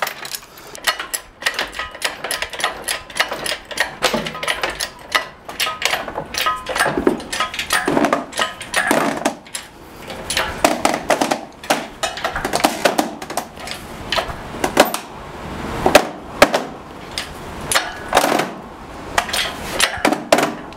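Irregular metallic clanks, clinks and knocks from steel lifting chain rattling against a 500-pound air compressor and a 1-ton hydraulic shop crane being worked to take up the load.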